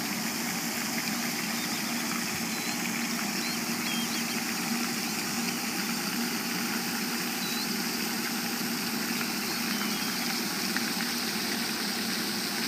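Pond fountain spraying: a steady rush of falling water with a low steady hum underneath, and a few faint high chirps.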